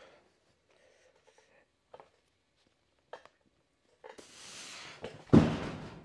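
Heavy hex dumbbells knocking lightly twice during an incline press, then a loud thud about five seconds in as they are dropped onto the rubber floor mat.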